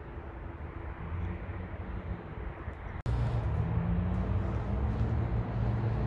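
Outdoor ambience dominated by the steady low hum of a motor vehicle's engine running. It breaks off abruptly about three seconds in and comes back louder.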